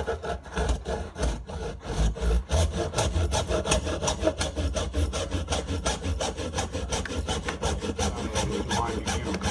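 Hacksaw cutting through a carbon fibre fork steerer tube in quick, even back-and-forth strokes, starting suddenly at the outset.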